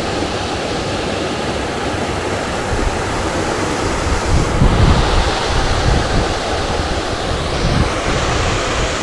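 Wind on the microphone: a steady rushing noise with heavier low buffeting gusts about halfway through and again near the end.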